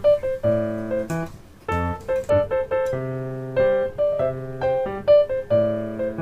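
Background music: a piano playing a light melody of separate, evenly paced notes.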